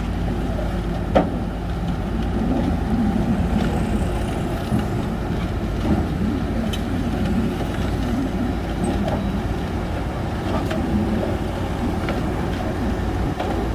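Shantui bulldozer's diesel engine running steadily as it pushes soil, a continuous deep rumble, with a few short sharp clanks, the loudest about a second in.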